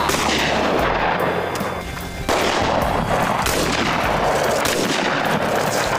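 Shotgun fire at flushed game birds, one sharp blast about two seconds in, over loud, steady, unbroken noise.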